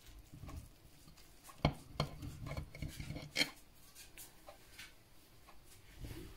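Serrated knife cutting through a soft sponge cake, the blade clicking and scraping against the plate, with a cluster of sharper clicks between about one and a half and three and a half seconds in.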